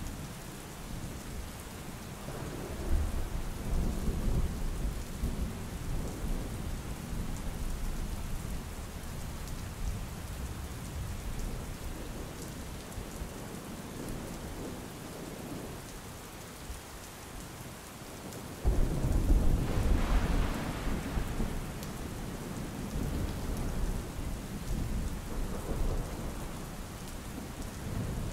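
Steady rain with two rolls of thunder: the first swells up a few seconds in and fades slowly, and the second starts suddenly about two-thirds of the way through and is the loudest.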